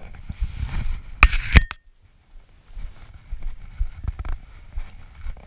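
Mountain bike rattling and knocking as it rolls down a rough dirt trail, with a low rumble of tyres and wind. Two sharp, loud knocks come about a second in, then the sound drops away for a moment before the rattling resumes.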